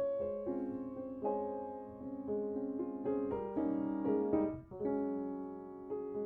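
Soft background piano music: a gentle melody of held notes over a steady accompaniment.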